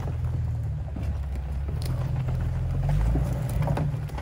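2005 Jeep Wrangler Unlimited (LJ) 4.0-litre straight-six engine running steadily at low revs as the Jeep crawls off the rocks, with scattered small clicks and knocks of stones under the tyres.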